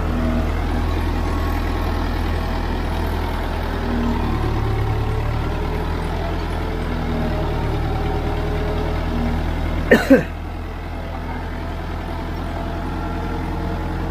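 Powertrac Euro 55 tractor's diesel engine running steadily under load while pulling a disc plough through hard soil. About ten seconds in there is a brief, sharp double sound that falls in pitch.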